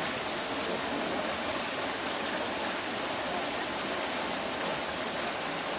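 Steady rush of running water, with no change or break.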